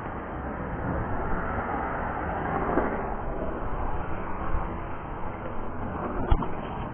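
Street traffic going by, a steady rush of car noise that swells a little near the middle, with a single sharp knock near the end.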